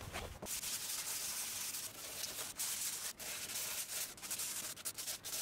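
Hand-sanding a spackle-coated 3D-printed plastic boat-hull mold with sandpaper: a rasping hiss in repeated strokes, with brief pauses between them.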